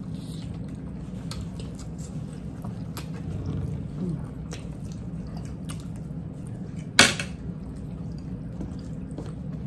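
Two people eating from plates with forks: quiet chewing and small scattered clicks of forks on plates, with one sharper clack about seven seconds in.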